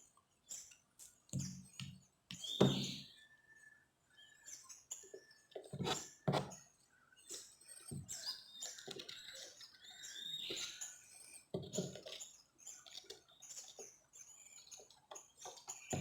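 Dove chicks giving short, high chirping calls that drop in pitch, mixed with irregular clicks and knocks of handling during hand-feeding.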